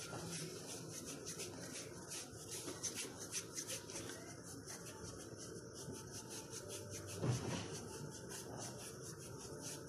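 Faint rubbing and scuffing of hands working soft bread dough on a flour-dusted wooden table.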